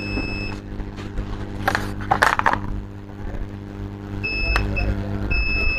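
Multimeter continuity beeper sounding as the probes touch points along a laptop motherboard's 19-volt power rail: a beep that stops about half a second in, then short beeps and a longer one near the end. A steady electrical hum runs underneath, with a brief rustle of handling about two seconds in.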